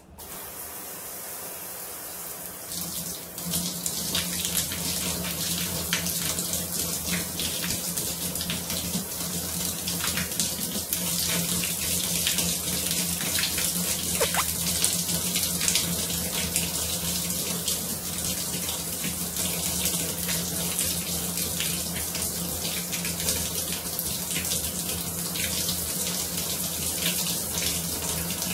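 Shower head spraying water, coming on at the start. About three seconds in, the spray begins falling on hands being rubbed together under it, and the splashing gets louder and stays steady.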